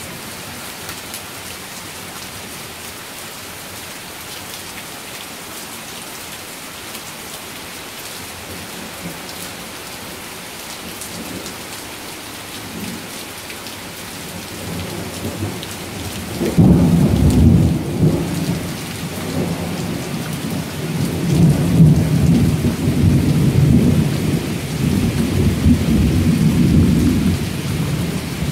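Steady heavy rain falling. About halfway through, a long roll of thunder comes in, a loud low rumble that swells and fades in waves and keeps going.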